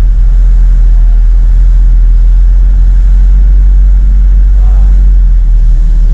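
Truck's engine running at low speed, heard from inside the cab as a heavy, steady low rumble while the truck creeps across the ferry's vehicle deck.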